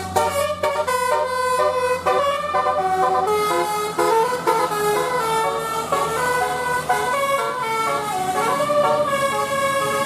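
Bus telolet horn, a set of air horns sounding several notes at once, playing a quick melody of short held notes that change every fraction of a second. A steady low hum runs underneath and drops away about seven seconds in.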